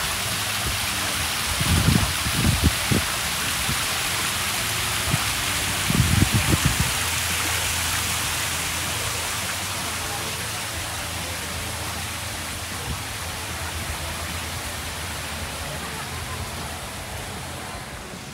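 Water sheeting down a stacked-stone fountain wall: a steady splashing hiss that eases slightly in the second half. A few short low thumps come in the first seven seconds.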